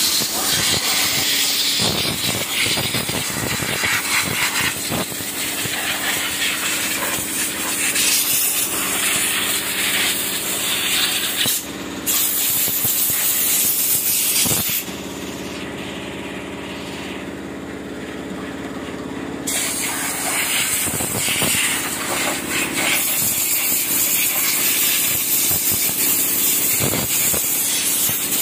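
Pressurised jet from a hose nozzle hissing as it is played over a motorcycle, cutting off for about five seconds midway, over the steady hum of the machine that feeds the hose.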